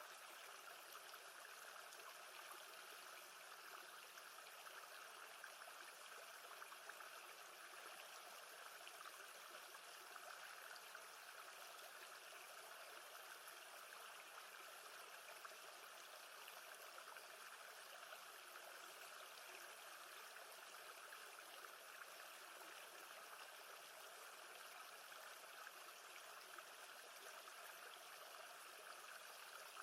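Faint, steady wash of lake water, an even rushing hiss with no rise or fall.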